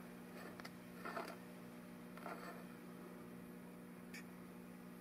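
Quiet workshop room tone: a steady low hum with a few faint clicks and rustles of a small metal part being handled.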